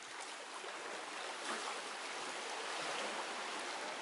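River water rushing over a shallow riffle, a steady hiss.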